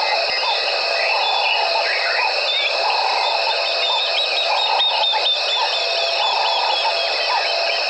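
Evening chorus of insects and frogs: a steady high ringing with short lower calls repeating about once a second, and a quick run of short high chirps in the middle.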